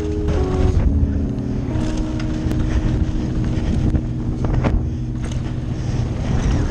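Downhill mountain bike running fast over a dirt trail: wind rushing over the action camera's microphone and tyre and frame rumble, with a few sharp knocks from bumps.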